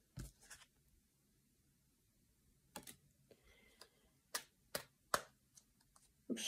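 A tarot deck being shuffled by hand: a scattering of faint, sharp card clicks and snaps, with near silence between them.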